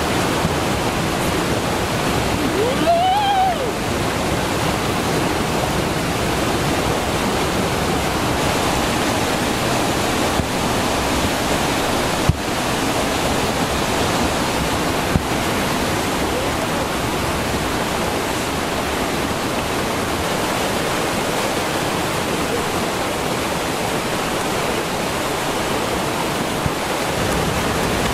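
Fast-flowing, swollen stream rushing over rocks in a loud, steady wash of water noise. A brief pitched voice sound about three seconds in and a couple of sharp clicks near the middle.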